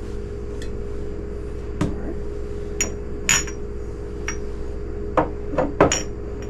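Small glass bottles knocked and clinked against a countertop and each other, about nine sharp irregular knocks bunched toward the end, some with a brief glassy ring, over a steady hum.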